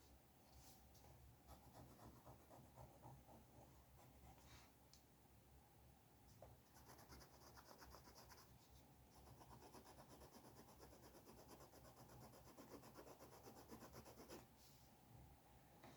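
Faint scratching of a drawing tool on paper, a pencil or dip pen making short strokes, with a longer run of rapid, fine strokes in the second half.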